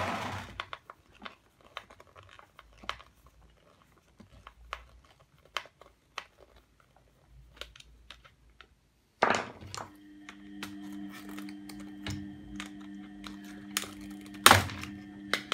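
A screwdriver turning a screw out of a vacuum cleaner's plastic base, with scattered small clicks and plastic rattles as parts are handled. From about ten seconds in a steady low hum runs underneath. Near the end pliers make one sharp snip on a wire.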